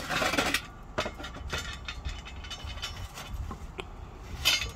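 Metal charcoal chimney starter full of briquettes handled on the grill grate: a rattling clank at the start, a few light knocks, and another clank near the end as it is set down over the lit fire starters.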